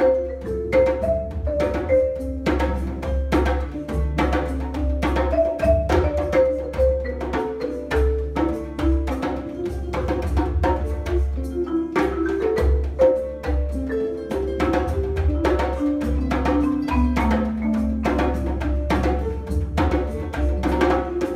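Marimba played with mallets in a flowing melody of short ringing notes, over a steady hand-drum rhythm on a djembe, with a low bass underneath. Near the end the marimba runs down through a string of falling notes.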